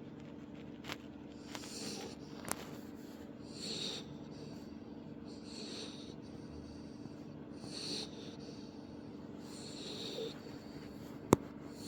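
A pit bull puppy snoring in its sleep, with a wheezy, breathy snore about every two seconds. A single sharp click near the end is the loudest sound.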